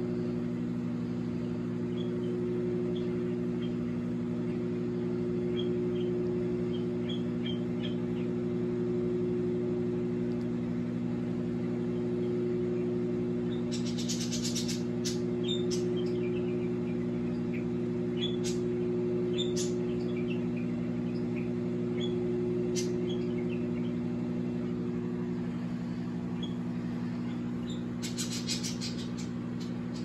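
Microwave oven running with a water-filled balloon heating inside: a steady electrical hum throughout. Brief bursts of rapid high clicks come about halfway through and again near the end.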